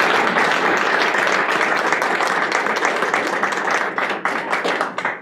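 Audience applauding, dense clapping that thins out and stops near the end.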